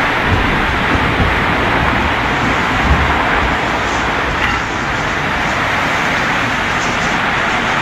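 Violent storm wind blowing hard through trees with heavy driving rain, a loud steady rush; gusts buffet the microphone with low rumbles during the first few seconds.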